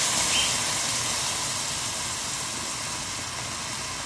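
A stream of hot water pouring into a pot of fried meat and garlic, a steady hiss that slowly grows quieter as the pot fills.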